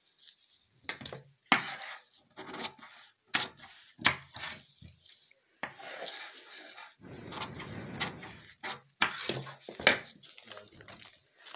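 Newspaper being folded and creased by hand on a wooden tabletop: paper rustling and crinkling in short bursts, with several sharp taps against the wood and a longer stretch of rustling about six seconds in.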